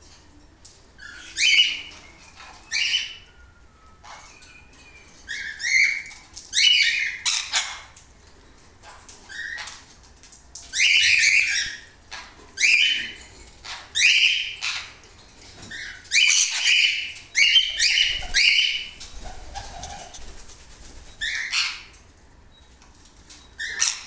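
Pet lorikeet giving short, harsh, screechy calls, about fifteen of them, spaced one to two seconds apart.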